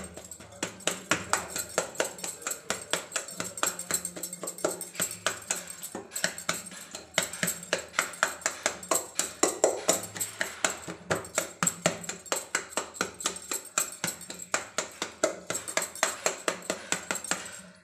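Stacked bangles jingling and clicking against each other and the steel bowl as a hand mashes roasted eggplant, in a quick, irregular run of several clicks a second.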